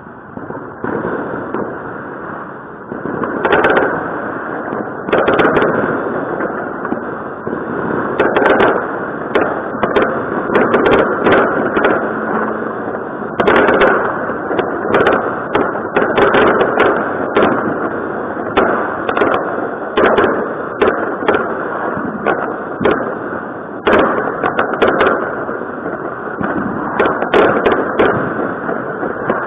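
Consumer fireworks going off: many sharp bangs at irregular intervals, several at a time in places, over a continuous noise of more explosions.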